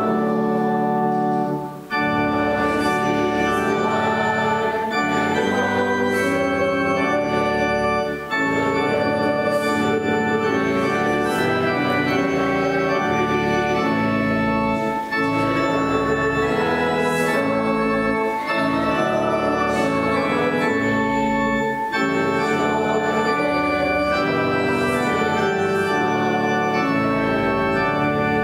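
Church organ playing sustained chords phrase by phrase, with brief breaks between phrases about every few seconds.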